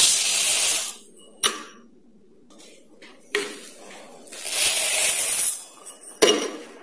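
Raw rice poured from a steel tumbler into a steel bowl: two rushing hisses of grains, each about a second long, one at the start and one past the middle. Sharp clinks of the tumbler against the steel come between and after them.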